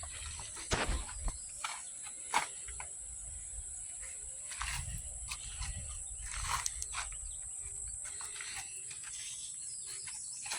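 Steady high-pitched insect droning, with scattered faint clicks and knocks.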